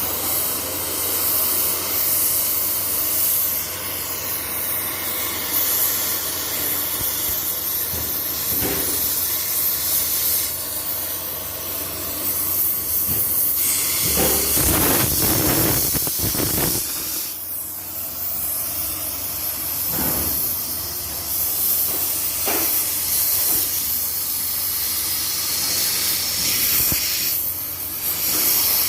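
Electric arc welding: the arc gives a steady sizzling hiss, with a few brief knocks in between.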